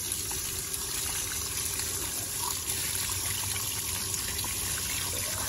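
Water running from an outdoor hose spigot, splashing steadily over a whole scaled sea bass held under the stream and onto the grass below.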